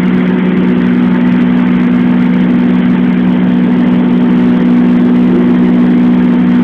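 Piston engine and propeller of a high-wing light aircraft heard from inside the cabin in flight: a loud, steady drone with two strong low hums and a hiss above them.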